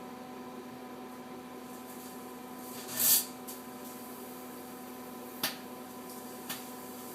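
Microwave oven running with a steady hum, and the carrot halves inside arcing: a loud crackling burst of sparks about three seconds in, then two sharp snaps, the second fainter.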